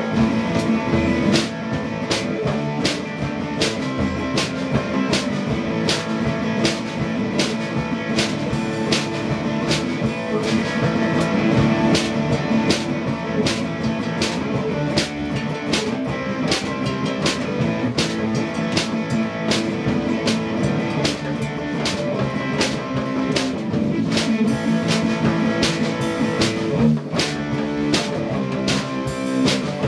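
Electric guitar and drum kit played live together, an instrumental rock-blues jam with a steady drum beat and cymbal hits.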